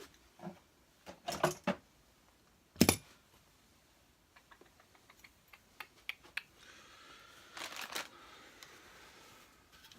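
Tools and small metal parts clicking and knocking while the fan is worked off a vacuum cleaner motor: a few taps, one sharp knock about three seconds in, a run of light ticks, then a short scraping rasp near the end.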